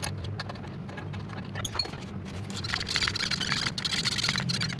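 Hand grease gun pumping grease through a zerk fitting into a flail mulcher's rotor bearing housing: a run of quick clicks and squishes that gets busier and louder in the second half, over a steady low hum.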